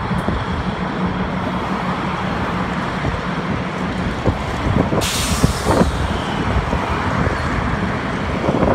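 GP38-2 diesel locomotives rolling slowly past, their engines running with a steady low drone. About five seconds in, a sudden sharp hiss of air release, typical of the air brakes, fades out within a second.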